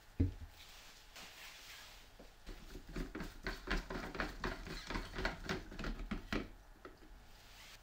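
A single knock, then from about two seconds in a quick, irregular run of small clicks and knocks that stops about a second before the end.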